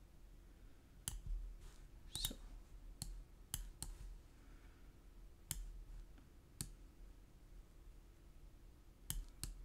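Computer mouse buttons clicking: about ten short, sharp clicks at irregular intervals, some in quick pairs, as shapes are selected and dragged.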